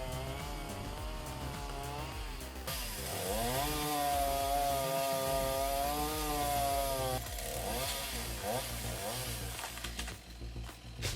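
Engine of a wood-cutting machine working under load. Its pitch dips about three seconds in, climbs back and holds high until about seven seconds, then breaks up.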